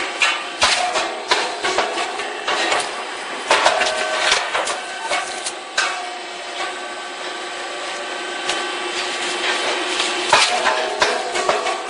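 Puffed rice cake machine running: irregular sharp mechanical knocks and clacks over a steady machine hum with a few held tones.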